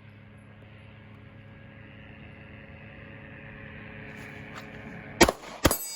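A steady low hum, then two pistol shots about half a second apart near the end.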